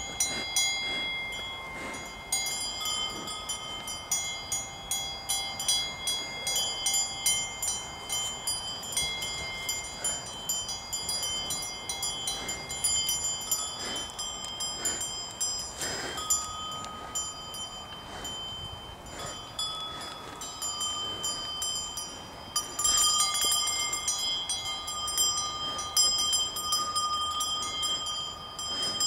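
Several cowbells on grazing cattle clanking and ringing irregularly, their different pitches overlapping, with many sharp strikes as the cows move their heads.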